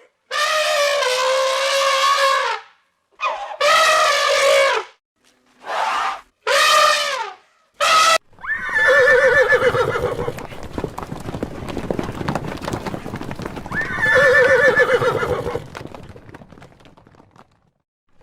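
A run of long, pitched animal calls, then a horse whinnying twice over the steady clatter of hooves.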